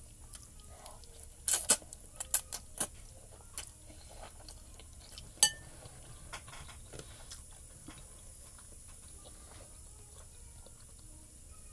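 Utensil clinking against a bowl of noodles. A quick cluster of sharp clicks comes about a second and a half in, then one ringing clink a few seconds later, with faint small eating sounds between.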